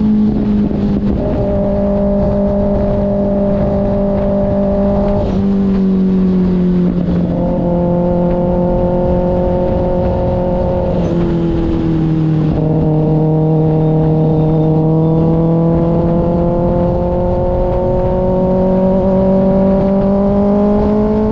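2024 Kawasaki ZX-6R's 636 cc inline-four running through an aftermarket IXIL exhaust at a steady, fairly high engine speed. The pitch steps down abruptly a few times, about five, eleven and twelve seconds in, then climbs slowly toward the end.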